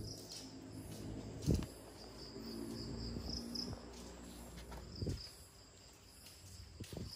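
Crickets chirping steadily, with a cat's low, even purr underneath that fades out about four and a half seconds in, and a few soft thumps.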